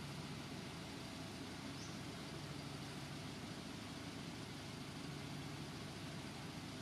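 Steady low hum of an idling engine under a constant hiss of background noise.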